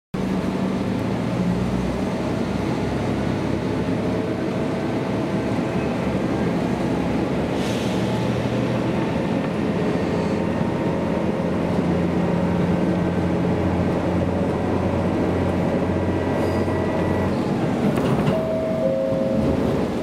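Inside a KiHa 200 diesel railcar under way: a steady diesel engine hum over wheels running on the rails. About three-quarters of the way through, the engine hum drops away, leaving the rolling noise and a couple of faint clicks from the track.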